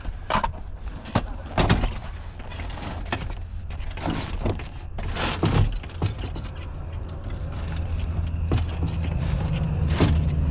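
A string of clicks, knocks and rattles, like hands working on parts and fittings, over a low steady hum that grows louder in the second half.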